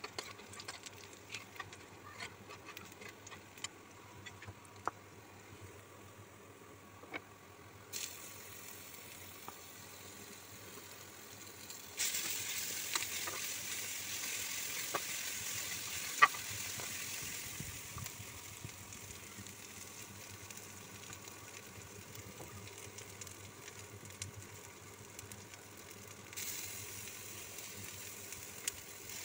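Sliced onions sizzling in hot oil in a metal pan, with a metal spatula scraping and tapping against the pan as they are stirred. The sizzle gets louder in sudden steps, most of all about twelve seconds in, and one sharp tap stands out a few seconds later.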